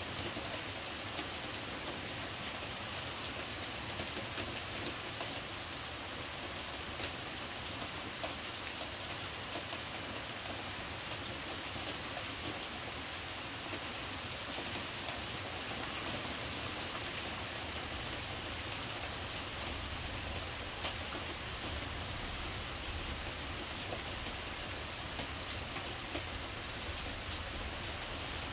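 Heavy rain falling on the roof, heard from inside: a steady hiss with individual drops ticking through it.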